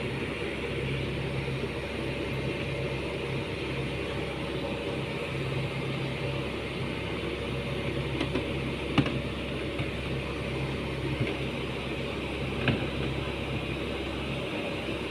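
Heavy diesel engine running steadily at a constant speed, with a few sharp metallic knocks about nine seconds in and again near thirteen seconds.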